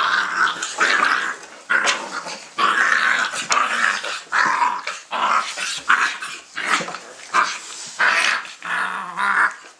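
Dogo Argentino puppies making short, repeated squealing growls, about one or two a second, as they jostle at their mother to nurse.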